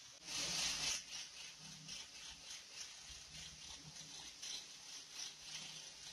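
Angle grinder working on a stainless steel railing: a loud burst of grinding hiss about a second long, then a run of short grinding strokes, about two or three a second, as the disc touches the steel again and again.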